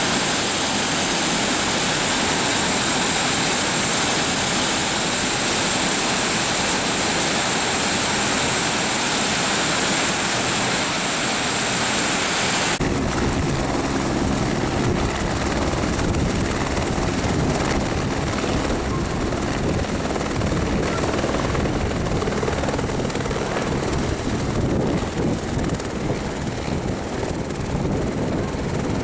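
Helicopter running steadily: a loud rushing engine noise with a high steady whine. About halfway through, the sound changes abruptly to a heavier low rumble with a fainter high tone.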